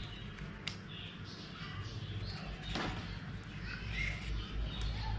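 Large scissors snipping through a strip of rubber slingshot band: a few faint, short cutting clicks over a low steady hum.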